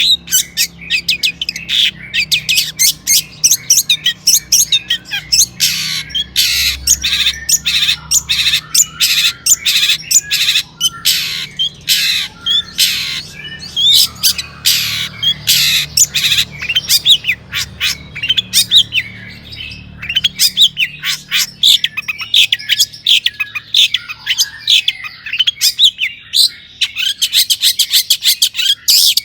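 Long-tailed shrike singing without pause: a rapid stream of sharp, harsh notes and chattering phrases.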